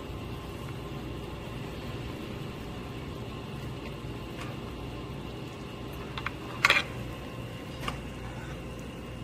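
Steady low hum of restaurant room noise. About two-thirds in comes a brief clatter of tableware, metal on crockery, with a single click a second later.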